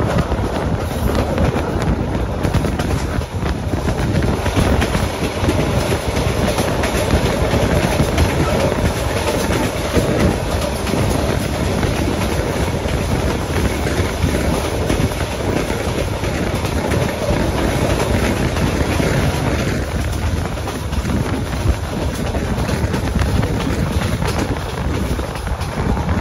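Vietnam Railways SE9 passenger train running steadily on the North–South line: a continuous rumble of wheels on rails, with a constant scatter of knocks and rattles from the track and carriage.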